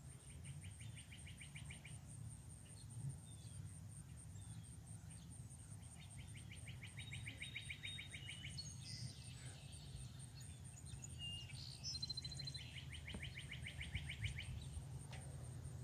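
Songbird singing: a rapid dry trill of evenly spaced notes about two seconds long, given three times, with a few higher chirps between the trills.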